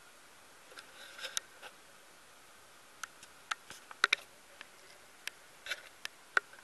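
Domestic cat grooming itself, its tongue making small, sharp, irregular licking clicks and smacks, about a dozen in all, loudest a little after the middle.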